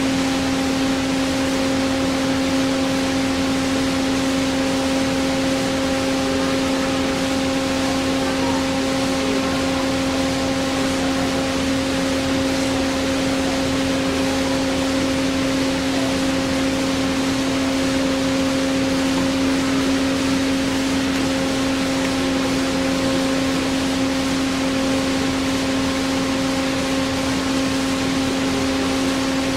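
Hyd-Mech S-20A automatic horizontal band saw running: a steady, constant-pitched machine hum over an even hiss, as the machine works through its automatic cycle feeding bar stock.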